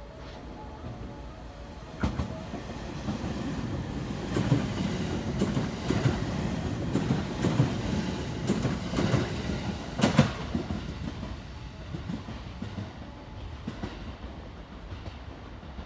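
JR West 289 series electric limited express passing through a station at speed without stopping, its wheels clacking over rail joints in a quick run of clicks. The sound rises sharply about two seconds in, is loudest in the middle and fades as the train moves away.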